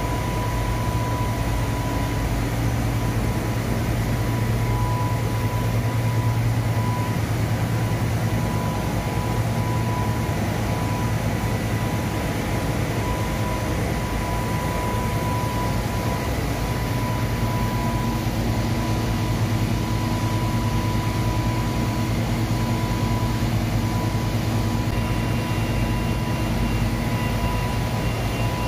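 Industrial front-loading washing machine of a glove-washing line running, a steady low hum with a steady higher whine over it.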